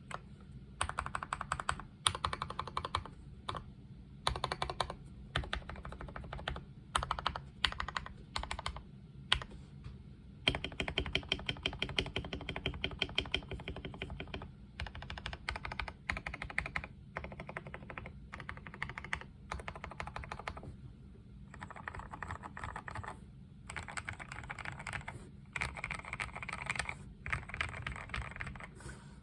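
KBD67 Lite mechanical keyboard with lubed Gateron Milky Yellow linear switches and lubed, holee-modded Durock V2 stabilizers, typed on in bursts of rapid keystrokes with short pauses between. Around the middle there is a longer unbroken run of fast typing.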